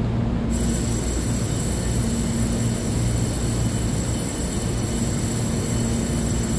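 Taiwan Railway EMU3000 electric multiple unit at the platform, giving a steady low electrical hum. A thin high-pitched whine comes in suddenly about half a second in and holds steady.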